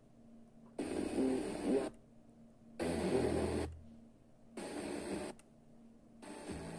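FM tuner on a Sony DAV-560 receiver stepping through the band frequency by frequency: four short snatches of station audio with hiss, each about a second long, cut off by near-silent muting gaps between steps.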